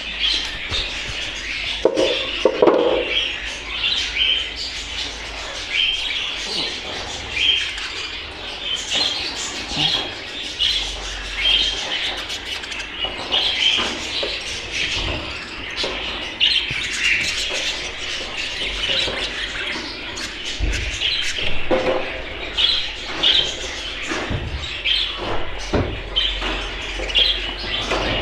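A roomful of caged budgerigars chirping and chattering continuously, with a few brief knocks.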